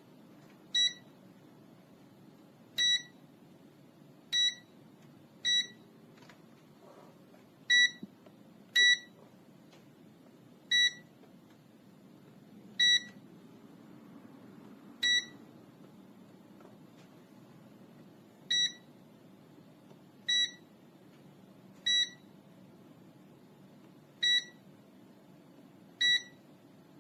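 Short single-pitched electronic beeps, about fourteen of them, each brief and spaced irregularly one to three and a half seconds apart.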